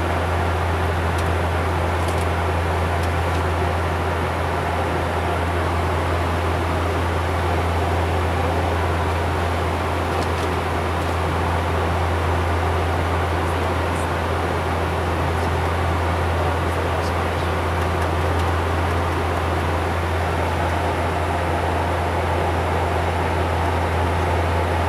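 Steady cockpit drone of a Bombardier Q400 in cruise: its Pratt & Whitney PW150A turboprops and six-blade propellers give a strong, even low hum under a steady hiss, unchanging throughout.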